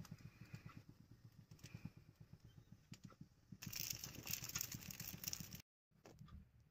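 Faint crackling and rattling of a roti cooking on an iron tawa over a gas burner, with a low rumble under it. Just past the middle a louder hissing, crackling stretch lasts about two seconds and then cuts off abruptly.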